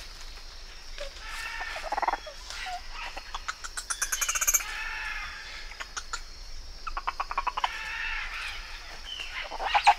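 Animal calls: a series of high cries that rise and fall in pitch, with bursts of rapid chattering about four and seven seconds in and the loudest cry just before the end.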